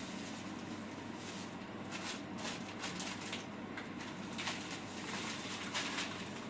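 Plastic bags and snack packets rustling and crinkling as they are handled, a string of short crackles from about two seconds in, over a steady low hum.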